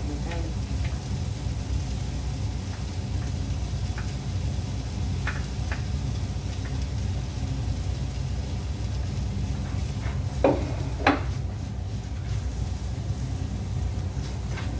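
Food frying in a pan while a spoon scrapes and stirs, with small clicks of utensil on plate and pan and two sharp clinks a little over ten seconds in. A steady low hum runs underneath.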